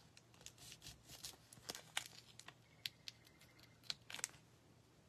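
Faint crinkling and small clicks of paper and adhesive foam dimensionals being handled and peeled from their backing sheet, scattered irregularly and dying away about four seconds in.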